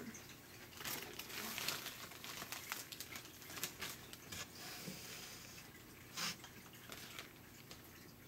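Hand spray bottle misting a terrarium: a string of short hissing squirts, with droplets pattering on the leaves and substrate.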